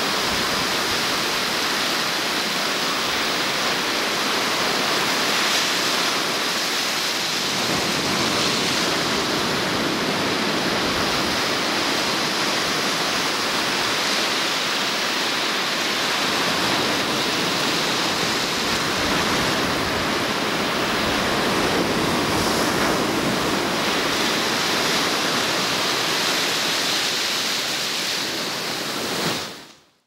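Ocean surf breaking and washing up a sandy beach: a steady rushing with waves swelling and easing every few seconds. It cuts off just before the end.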